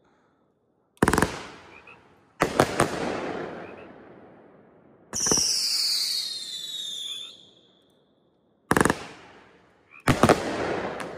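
World Class 500-gram firework cake (Back the Blue) firing its shots: about five sharp reports, each trailing off over a second or two. One shot near the middle carries a whistle that falls in pitch.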